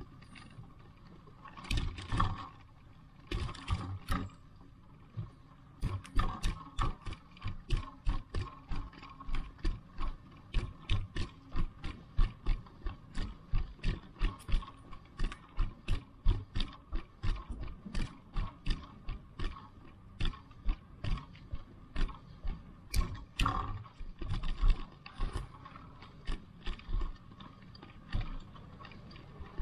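Footsteps at a steady walking pace, about two to three a second, each with a sharp click; the steps are more scattered near the start and end.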